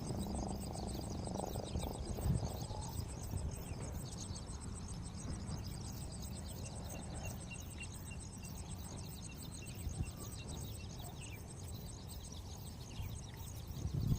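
Insects, likely crickets, chirping in a steady, even rhythm, with occasional short bird chirps, over a low steady background rumble.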